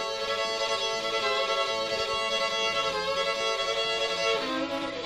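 Background music: a violin melody in long held notes, moving to lower notes near the end.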